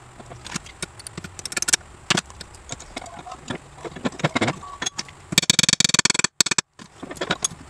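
Hammer striking a small steel part held in a bench vise: scattered metallic taps and clinks, then a quick run of rapid taps about five and a half seconds in that cuts off abruptly.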